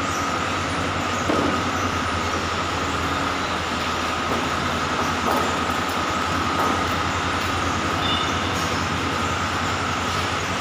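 Steady mechanical running noise with a constant high whine over a low hum, and a few light knocks.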